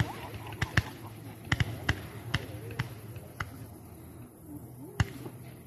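Fireworks bursting at a distance: scattered sharp pops, several in the first three seconds, then a louder single bang about five seconds in.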